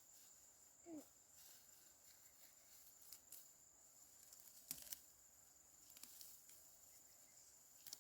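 Near silence: faint outdoor background with a steady high-pitched hum, a brief faint call about a second in, and two sharp clicks just before halfway.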